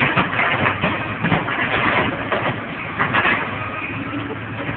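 Hydraulic excavator demolishing a building: its diesel engine running steadily under repeated crashing and crunching as the bucket tears into and breaks up the wooden structure and debris.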